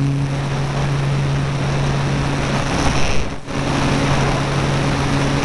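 E-flite Apprentice electric RC trainer's motor and propeller running steadily in flight, a low hum under heavy wind rush on the airframe-mounted microphone. The sound drops briefly about three and a half seconds in.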